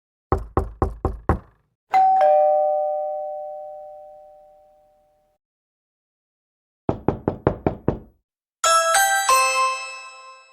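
Knocking on a door: five quick raps, then a two-tone ding-dong doorbell chime, falling in pitch, that rings out over about three seconds. After a pause comes another run of about six knocks, then a bright multi-note musical doorbell chime near the end.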